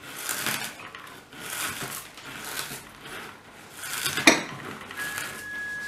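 Potato chips being crushed between the fingers over a wooden cutting board: repeated dry crunching and crackling. A single sharp click comes about four seconds in, and a steady high tone starts near the end.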